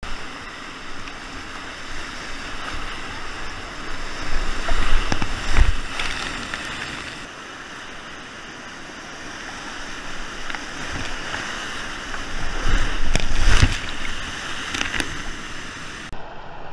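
Whitewater rapids rushing and churning around a kayak, a steady wash of water noise with two louder stretches of splashing and low thumps, about five seconds in and again about thirteen seconds in.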